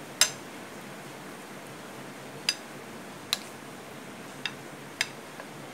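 Metal spoon clinking against a ceramic plate while stirring raw prawns into a thick paste: five sharp clinks, spaced irregularly, the loudest just after the start.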